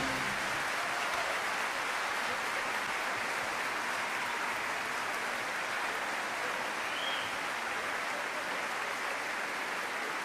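Paella sizzling in a wide pan over a wood fire: a steady, even hiss.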